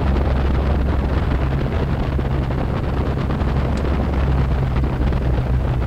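Cessna 182's piston engine and propeller running steadily at taxi power, heard as a constant low drone inside the cockpit.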